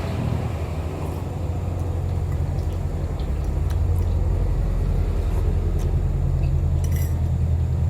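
Low, steady engine rumble that grows a little louder over the first half, with a few faint clicks over it.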